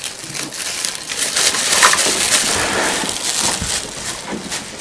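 Plastic bags rustling and crinkling as they are handled and rummaged through, a dense run of small crackles and crumples.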